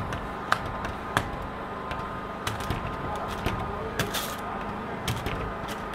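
Hard squeegee strokes scraping across a wet backing sheet laid over window film on glass: scattered short clicks and scrapes, with a longer swish about four seconds in, over a steady background hum.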